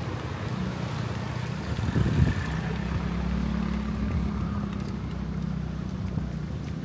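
An engine running at a steady low idle, heard as an even low hum, with a short thump about two seconds in.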